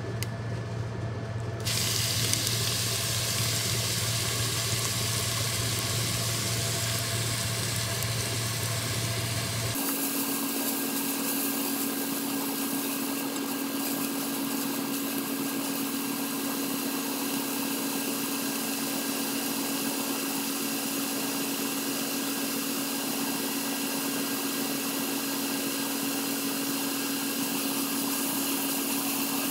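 Chopped onions sizzling in hot oil and melted ghee in a pot, a steady hiss over a steady motor-like hum. The sound changes abruptly about two seconds in and again about ten seconds in.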